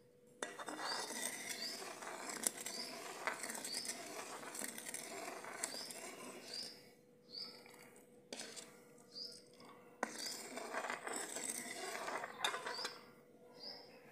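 Long steel ladle stirring and scraping milk in an aluminium karahi, with sharp clinks of metal on metal, as vinegar curdles the milk for paneer. The stirring comes in stretches of a few seconds with short pauses between them, and a small bird chirps repeatedly throughout.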